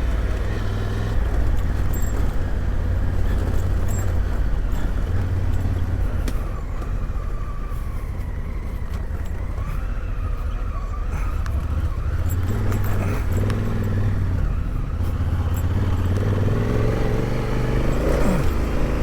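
Adventure motorcycle engine running as it is ridden along an off-road track, heavy low rumble throughout, revving up near the end.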